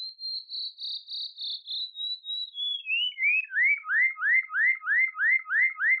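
Synthesized bird tweet from an Absynth 5 loop-envelope patch. It starts as a high, rapidly fluttering whistle, then slides lower as the tweet depth is changed and settles into a steady run of rising chirps, about three a second, each cut short by the amplitude envelope before the next one restarts.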